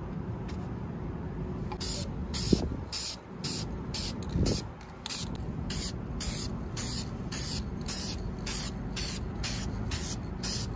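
Rust-Oleum aerosol spray paint can spraying in short hissing bursts, about two to three a second, starting about two seconds in, over a steady low background rumble.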